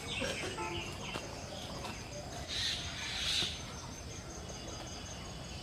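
Morning birdsong: several birds chirping and calling in a mix of short notes, with one louder, harsher burst about halfway through.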